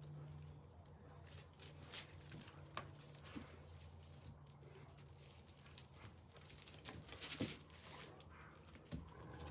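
Dogs playing with a toy: scattered short rustles and clinks come in two busy spells, over a steady low hum.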